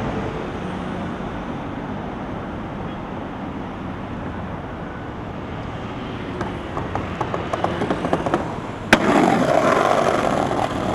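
Steady city traffic noise, then skateboard wheels rolling and clattering over brick pavers, with a sharp clack about nine seconds in followed by louder rolling rumble.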